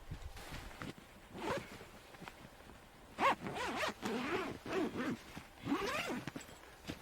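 A zipper pulled in several short strokes with pauses between, each stroke a brief rising-and-falling rasp.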